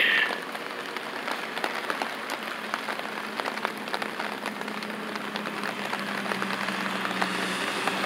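Light rain pattering: a steady hiss scattered with many small drop ticks. A faint low hum builds through the second half.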